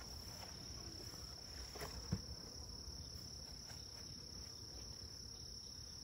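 Steady high-pitched chorus of crickets, with a single light knock about two seconds in as the hive's cover is set down on the wooden stand.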